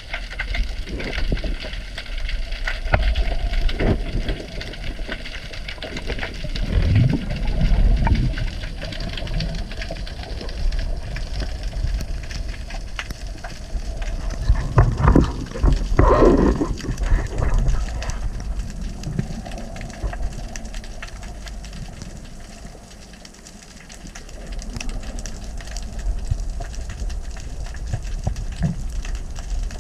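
Underwater sound from a spearfisher's camera: a steady low rumble of water movement with scattered clicks, and twice a louder gurgling of bubbles.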